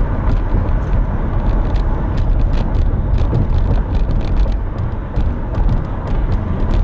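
Steady, loud low rumble with many short, light clicks scattered through it.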